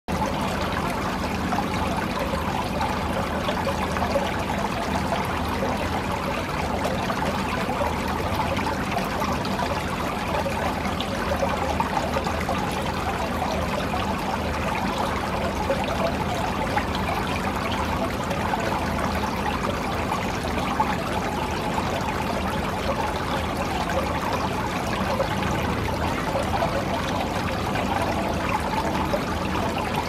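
Garden fountain running: water bubbling up from a brass nozzle and splashing back into a stone basin, a steady, unbroken splashing.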